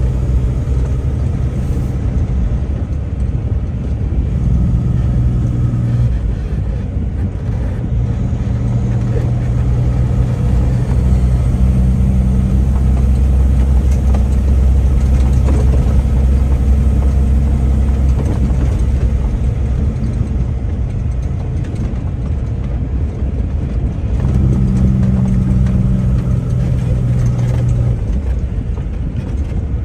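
Vehicle engine running while driving, a steady low engine note that shifts in pitch several times as engine speed changes.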